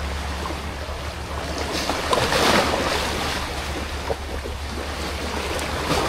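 Wind and choppy sea waves washing around the floating raft, with wind buffeting the microphone over a steady low rumble; the wash swells loudest about two seconds in.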